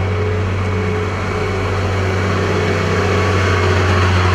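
Engines of heavy construction machines running, a steady low hum that grows a little louder in the second half.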